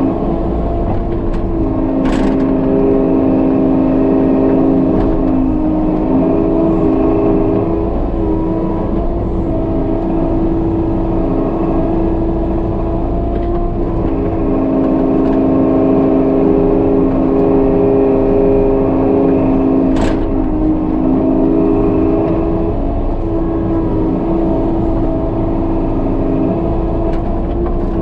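Kubota KX080-3 excavator's diesel engine and hydraulics running steadily under digging load, heard from inside the cab: a steady drone whose tone steps up and down as the boom and bucket are worked. Two sharp clicks, about two seconds in and again about twenty seconds in.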